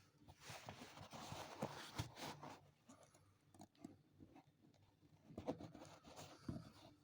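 Faint scratching and rubbing with scattered small clicks and taps, the sound of hand work on leather.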